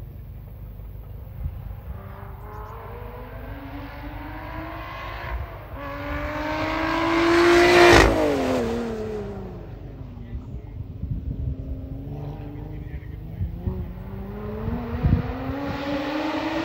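Lotus Exige 410's supercharged V6 accelerating hard toward and past, its note climbing and getting louder until it passes close about eight seconds in, then dropping sharply in pitch as it pulls away. The engine note rises again near the end as the car accelerates further off.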